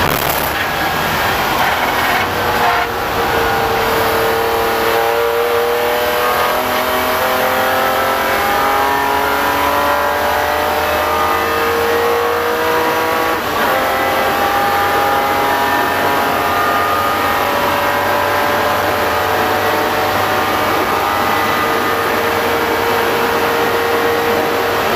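BMW M3 race car's engine heard from inside the cockpit, pulling at full throttle with its pitch climbing steadily, dropping briefly at a gear change about three seconds in and again about halfway through. An even hiss of tyres and spray on the wet track runs underneath.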